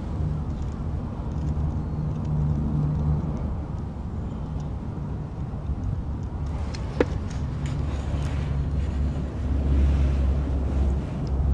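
Low, steady outdoor rumble, with a single sharp click about seven seconds in.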